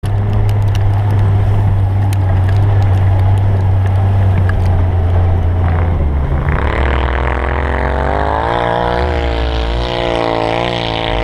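Off-road vehicle engine running under load in snow, a steady low drone that climbs in pitch about two-thirds of the way in and then wavers as the engine revs.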